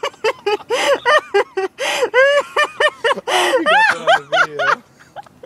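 A person laughing: a quick run of high-pitched giggles, turning into a lower drawn-out voiced sound about four seconds in that stops shortly before the end.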